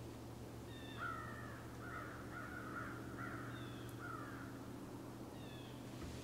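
A bird giving a quick series of about five harsh calls, starting about a second in and lasting around three seconds, with a few thin, high, down-slurred notes before and after.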